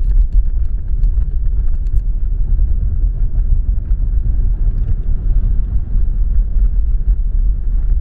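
Car cabin road noise while driving at highway speed: a steady low rumble of engine and tyres.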